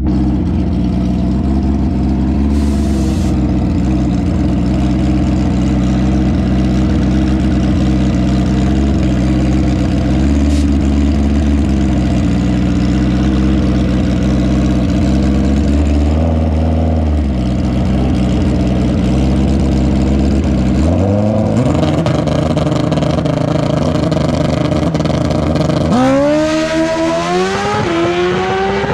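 Drag motorcycle engine idling steadily with a few light blips of the throttle, then revving up with rising pitch about 21 seconds in and accelerating hard near the end, its pitch climbing in steps through the gear changes.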